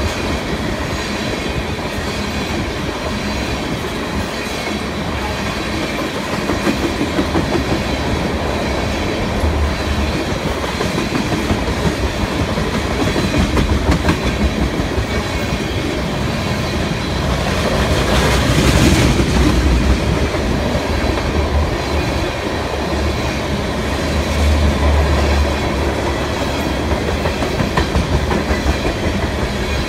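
Loaded freight train's tank cars rolling past: the steady noise of steel wheels on rail, with wheelsets clicking over the rail joints. A louder swell comes a little past halfway.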